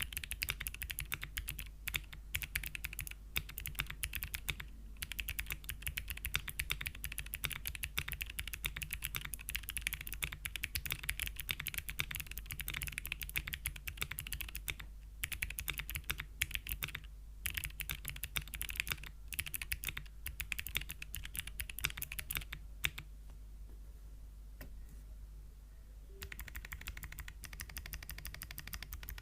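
Fast typing on a 60% mechanical keyboard fitted with Gateron Melodic clicky switches in an aluminium plate on an O-ring mount: rapid overlapping clicks. The typing stops for about three seconds near the end, then picks up again.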